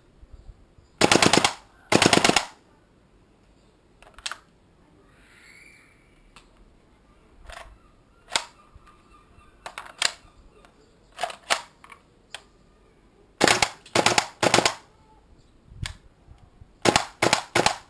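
WE L85A2 gas blowback airsoft rifle firing on full auto in several short bursts, with single shots in between. The bursts are cut short, which the shooter puts down to the gas running out and the cold making the bolt stick.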